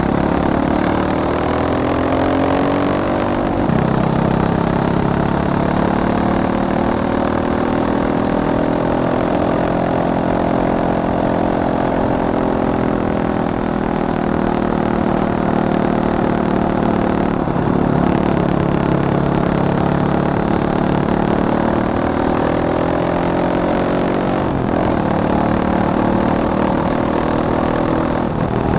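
Fantic Caballero 500's single-cylinder four-stroke engine running under way, its pitch slowly climbing and falling with the throttle. It drops suddenly a few seconds in and again past the middle, like gear changes.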